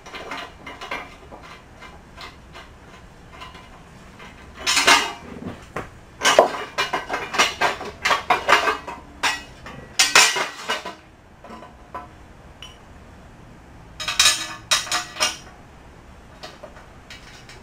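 Irregular bursts of metal clinking and clattering: tools and small steel parts being handled at a pillow-block bearing housing. There are four bursts, about a second or more each, with quieter gaps between them.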